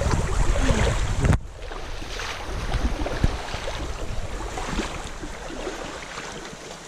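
Wind buffeting the microphone over rushing stream water; about a second and a half in it drops abruptly to a softer, steady rush of water with a few light ticks.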